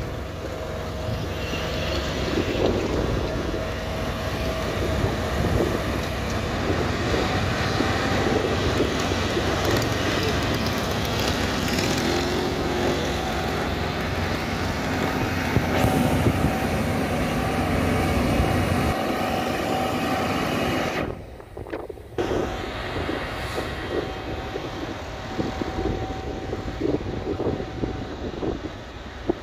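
Diesel engine of an SSP ballast-regulator track-maintenance machine running steadily on the railway line. About two-thirds of the way through, the sound drops out sharply for a moment and then carries on more quietly as the machine moves away.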